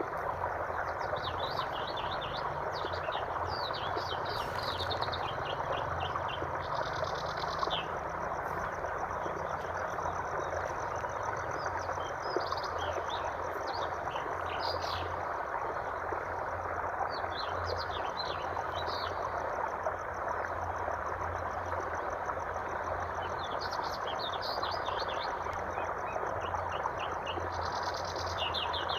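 Steady rush of flowing water with small birds chirping over it in repeated clusters of quick, high notes.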